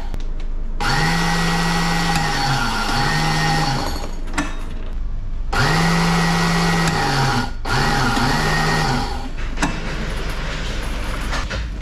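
Motor of a portable tarpaulin seaming machine running in spurts as PVC truck-trailer tarpaulin is fed through its rollers. Each spurt rises in pitch, holds and winds down: a long run followed by a shorter one, twice over.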